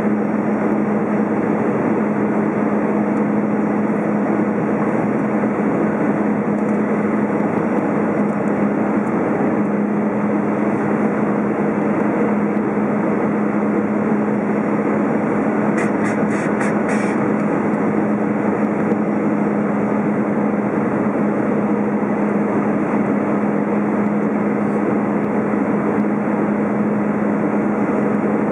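Airbus A320 cabin noise heard by the wing on the descent: a steady rush of airflow and jet engines running, with a constant low hum underneath.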